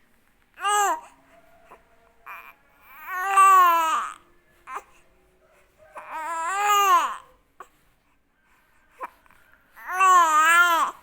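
A baby fussing, giving four whiny cries. The first is short and the rest last about a second each, spaced about three seconds apart, each rising and then falling in pitch.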